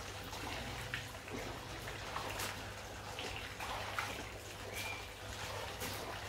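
Pond water splashing and trickling in small irregular splashes as a hand wipes a filter sponge along the inside of a glass pond window.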